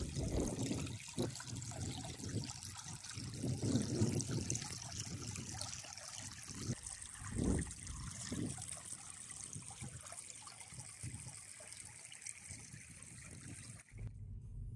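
Small shallow stream trickling steadily over stones, with a few brief low rumbles in the first half.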